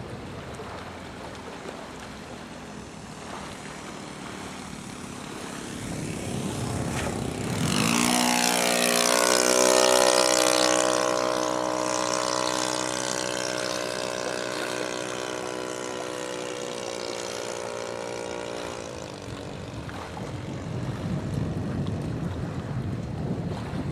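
Engine and propeller of a radio-controlled model floatplane flying past. The buzz comes in several seconds in with its pitch rising, is loudest soon after, holds a steady note, then sinks in pitch and fades a few seconds before the end.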